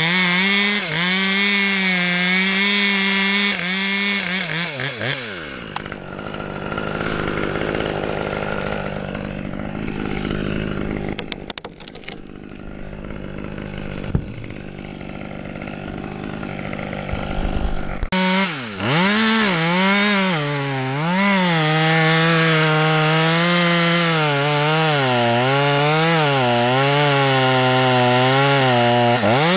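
Chainsaw cutting into an ash trunk at full throttle, its pitch wavering as it bites into the wood. About five seconds in it drops back to idle, with a few knocks, then about eighteen seconds in it revs up and cuts again.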